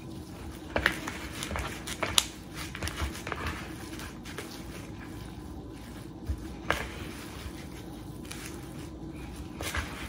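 Gloved hands kneading and squeezing raw seasoned ground beef on a paper plate: soft wet squishing with scattered short sharp clicks, over a faint steady hum.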